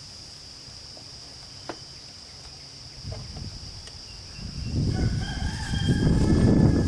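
A rooster crowing once, a drawn-out call near the end, over a steady high insect buzz. Underneath, a rough low rumble builds from about halfway and becomes the loudest sound.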